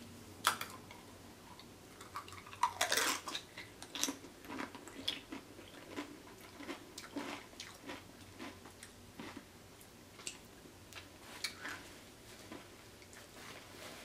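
Close-up chewing of a queso-dipped tortilla chip: a bite about half a second in, then irregular crunches and mouth clicks as it is chewed, the loudest about three seconds in.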